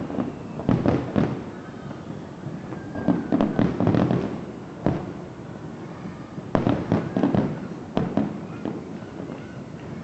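Aerial fireworks bursting: repeated sharp bangs with echoing tails, coming in clusters every second or two.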